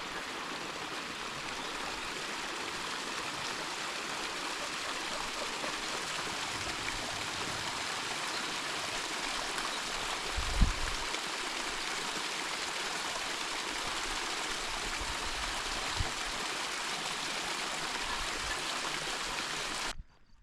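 Steady rush of a mountain stream's flowing water, cutting off abruptly near the end, with a low thump about halfway through.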